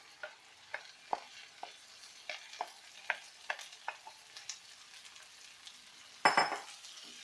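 A spatula stirring and scraping in a pan of onions frying in hot oil, about ten separate strokes over a faint sizzle, with marinated chicken going into the pan. About six seconds in comes a sudden loud burst of sizzling that fades within about a second.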